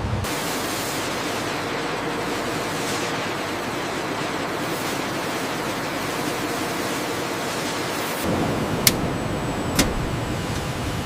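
Steady, even machine noise of a factory floor. It changes character about eight seconds in, and two sharp clicks follow about a second apart.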